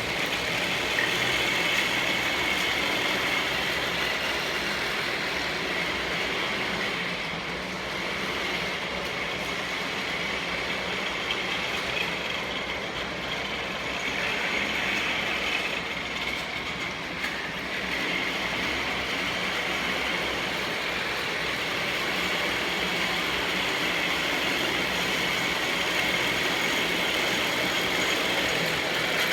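A machine running steadily throughout, with a constant high hum and a slight dip in level for a few seconds in the middle.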